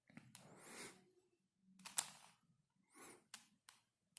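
Faint clicks and a short sliding scrape as the layers of a plastic 5x5 Ultramorphix twisty puzzle are turned by hand: one slide about half a second in, a sharp click at about two seconds, and a few lighter clicks near the end.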